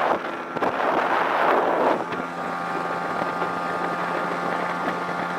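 A 9.8 hp Daihatsu outboard motor runs steadily at full throttle while the small bass boat planes. Wind rushes over the microphone, strongest in the first couple of seconds.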